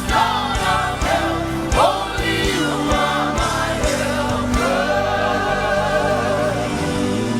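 Gospel praise music: voices singing together as a choir over a band with bass and drums, with a long held sung note in the second half.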